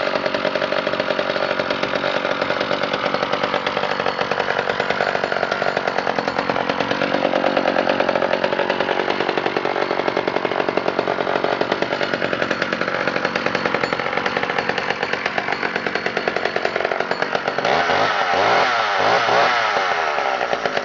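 Two-stroke chainsaw engine running hard at high speed. Its pitch sags and recovers about a quarter of the way in, then swings quickly up and down near the end.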